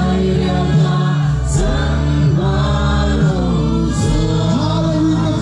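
Large congregation singing a worship song together, many voices at once, over steady amplified accompaniment with sustained low notes.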